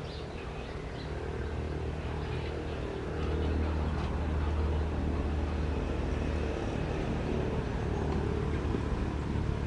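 Low, steady rumble of a motor vehicle engine, growing louder about three seconds in, with faint high chirps in the first second.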